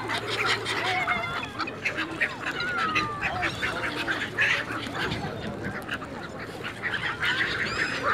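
Egyptian geese and black-headed gulls calling over one another: a dense run of many short overlapping calls, some gliding in pitch.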